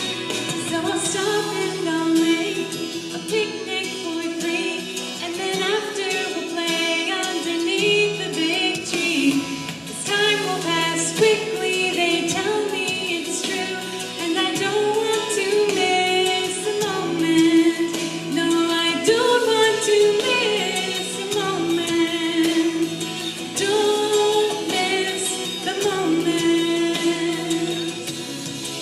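A woman singing a worship song with instrumental accompaniment.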